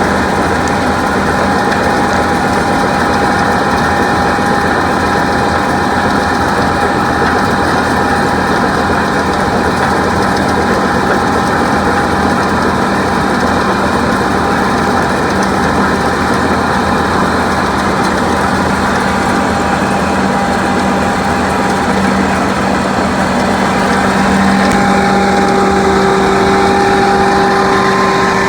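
John Deere combine harvester running steadily while picking soybeans, a constant engine and machinery drone with a held hum. About 25 seconds in, a second higher tone joins and the sound gets slightly louder.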